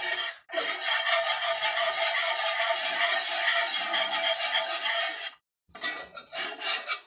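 Wire whisk scraping rapidly around a cast-iron skillet, whisking a butter-and-flour roux as it cooks into a paste. The strokes pause briefly just after the start and again about five seconds in.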